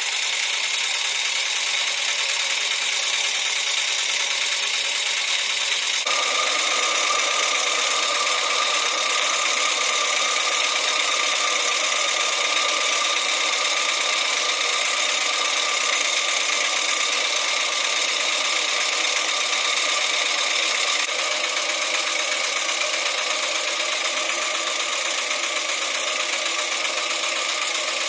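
PM Research No. 7 model steam engine running steadily on steam from a copper boiler: a constant hiss with the even mechanical running of the engine, which sounds fuller about six seconds in.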